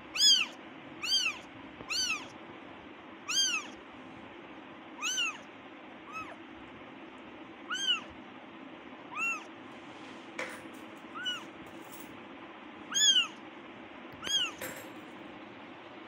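Very young kitten meowing over and over in super-high, thin cries that each rise and fall in pitch, about a dozen short calls one to two seconds apart: a kitten crying for its mother.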